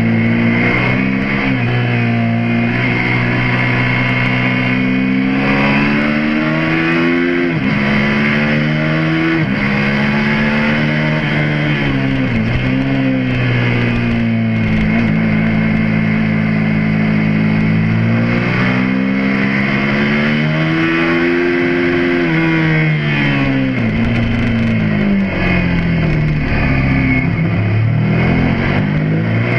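Suzuki SV650S's 90-degree V-twin engine at track speed, heard from on the bike: its revs climb through the gears and drop sharply several times as it accelerates out of corners and shuts off for the next.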